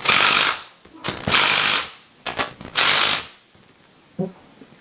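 Ratchet wrench clicking in three quick strokes, each under a second, as the pump head's bolts are tightened down; a single small knock follows near the end.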